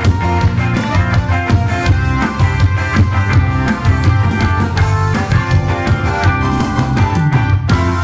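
Background music with a steady drum-kit beat and bass line.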